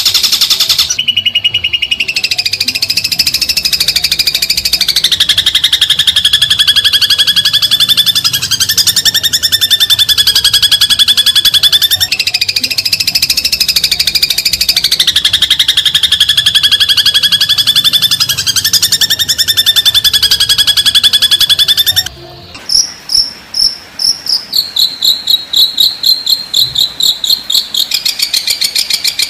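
Masteran bird-training recording: a rapid, unbroken high trill that steps up and down in pitch. About 22 seconds in it breaks into short, separate trilled calls repeating about three times a second, and a steady trill returns near the end.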